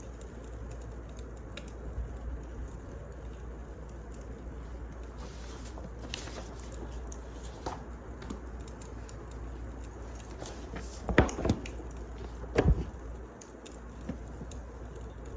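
Wood fire burning, with scattered small crackles over a steady low hiss. Two louder knocks stand out about two-thirds of the way in.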